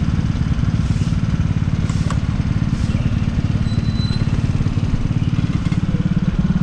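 Tuned Vespa Matic racing scooter engine running at a steady, fast-pulsing idle.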